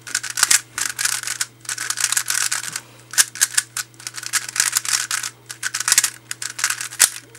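A 3x3 Rubik's cube being scrambled by hand: its plastic layers turning in quick runs of clicking and rattling, with short pauses between runs. A faint steady hum lies underneath.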